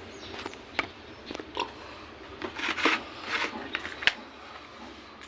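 Close mouth sounds of someone eating: chewing and smacking, with several short sharp clicks scattered through.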